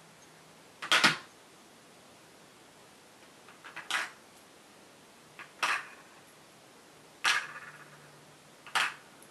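Five sharp metallic clicks and knocks, about one every second and a half, from handling the gutted VITA 5-pin euro cylinder as its top pins and springs are taken out. The fourth knock rings on briefly.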